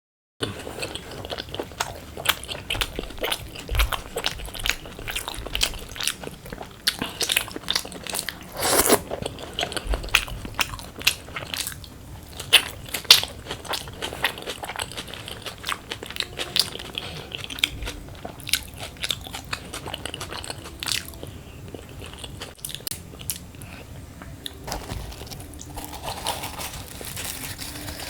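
Close-up eating sounds: chewing with many sharp, crisp crunches, the bites of crispy fried potato (aloo bhaja) eaten with luchi and chana dal. One crunch about nine seconds in is louder than the rest.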